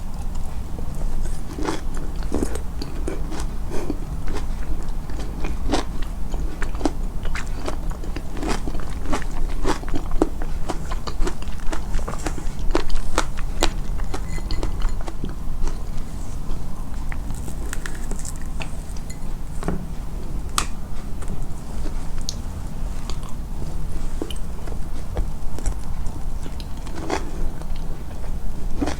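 A person chewing and biting food close to the microphone, with many irregular crunching clicks throughout.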